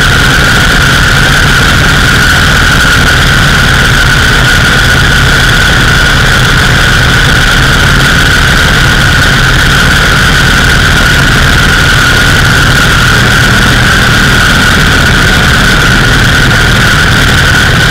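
Indian 101 Scout's side-valve V-twin engine running steadily under way, with a steady high-pitched whine above the low engine note and a constant rush of wind noise.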